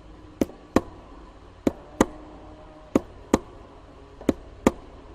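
A drum struck in a heartbeat rhythm: four double beats, lub-dub, about one and a quarter seconds apart, each stroke sharp with a short ring. It stands for the listener's own heartbeat in a guided meditation.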